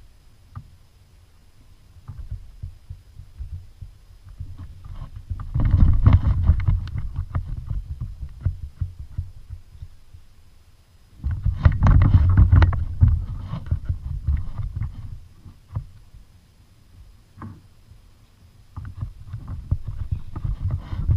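Rumbling, knocking noise aboard a fishing kayak on the water, in two long bursts of a few seconds each with scattered clicks and taps between.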